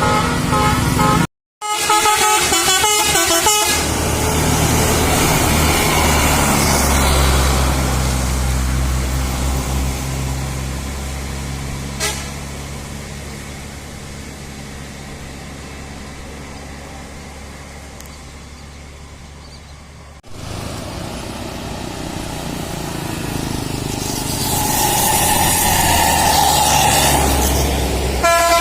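Indonesian bus 'telolet' Basuri musical horns play fast warbling multi-tone melodies near the start and again at the end. In between, a bus engine runs as the bus goes by, fading and then rising again.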